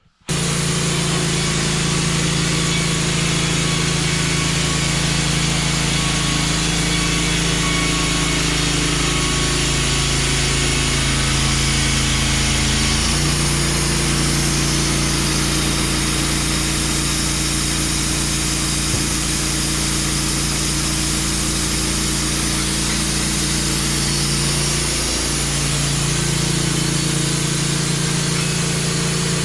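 Wood-Mizer LT15 portable bandsaw mill running, its engine driving a Turbo 7 band blade through logs cut into 2x4s. The engine note is steady and shifts pitch abruptly twice, about 13 and 25 seconds in.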